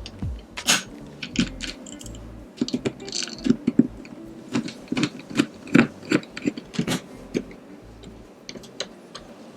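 Irregular clicks, taps and knocks of metal and plastic parts being handled and screwed together while a tower CPU cooler is fitted to a motherboard.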